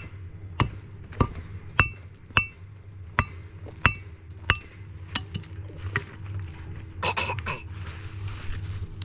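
A hammer striking metal: seven sharp blows with a short metallic ring, a little over half a second apart. Then a few lighter taps and a brief clatter about seven seconds in.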